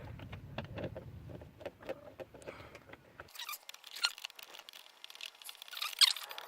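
Irregular light clicks, taps and rustling of things being handled, with a sharper click and a brief squeak about six seconds in.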